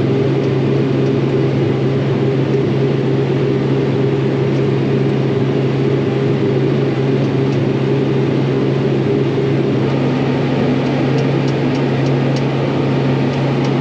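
Sprayer's engine running loudly inside the cab, a steady drone with one unchanging low hum.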